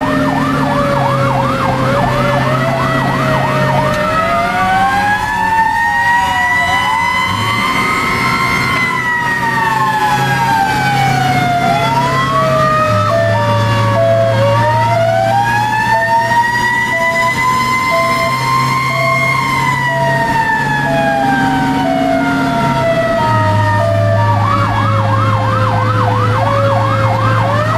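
Fire truck sirens heard from inside the ladder truck's cab. A fast yelp opens and returns near the end, with slow rising and falling wails from more than one siren overlapping in between, and a pulsing two-tone pattern in the middle. The truck's engine runs underneath.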